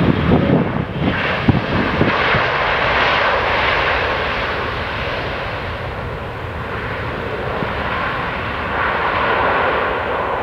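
Jet engine noise of a Boeing 777-300ER's GE90 turbofans as the airliner lands, a steady rushing roar that swells and eases.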